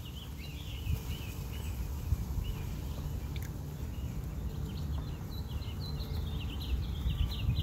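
Small songbirds chirping in repeated short, wavy phrases that pause midway and pick up again, over a steady low outdoor rumble.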